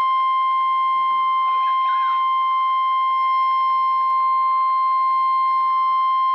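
NOAA Weather Radio warning alarm tone: a single steady, high-pitched 1050 Hz tone held without a break from the radio's speaker. It signals that a warning message, here a tornado warning, is about to follow.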